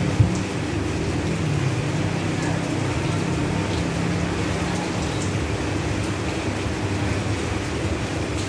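Steady rain falling on leaves and foliage, a continuous patter with a low hum underneath. A single short knock sounds about a quarter of a second in.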